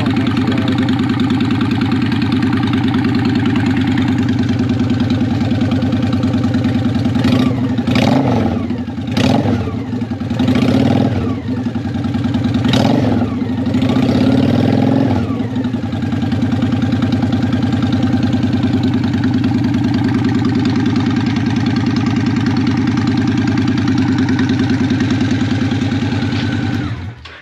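Honda Shadow Ace V-twin running loud through Vance & Hines Cruzer pipes with the baffles removed, idling steadily. It is revved several times between about 7 and 15 seconds in, then shut off near the end.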